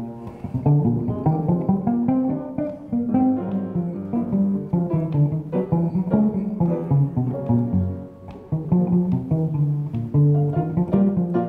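Instrumental music on low string instruments: a steady run of short pitched notes, with a brief lull about eight seconds in.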